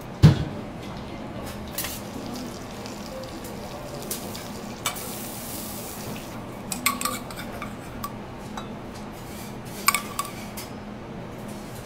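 Steady faint sizzling from a teppanyaki griddle, with one sharp knock of a metal spatula just after the start. A few short ringing metal clinks from small steel sauce pots and spoons come around the middle and again near the end.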